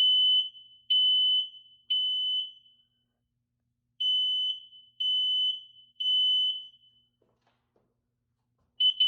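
Smoke alarm being tested, sounding its high-pitched evacuation beep in the standard three-beep pattern: three beeps about a second apart, a short pause, three more, then a choppier run of beeps near the end.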